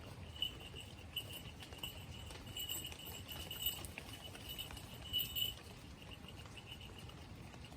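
A cricket chirping in rapid repeated pulses, high-pitched, dying away about five and a half seconds in, with scattered light patter of raindrops.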